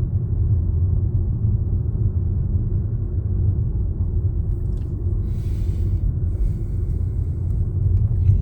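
Steady low rumble of a moving car heard from inside the cabin: road and engine noise, with a faint hiss rising briefly about five seconds in.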